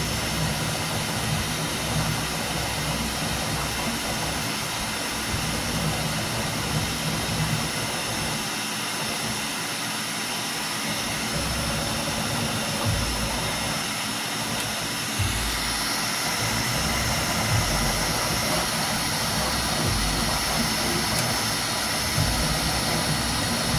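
Bambu Lab 3D printer running a print: a steady whir of cooling fans with the whine of its motors.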